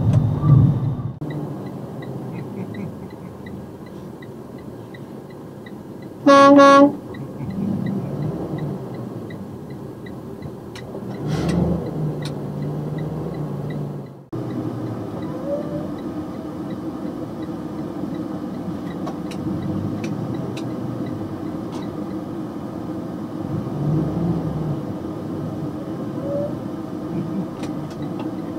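One short air-horn blast from a box truck, about half a second long and about six seconds in, over the steady drone of the truck's engine and road noise heard from inside the cab.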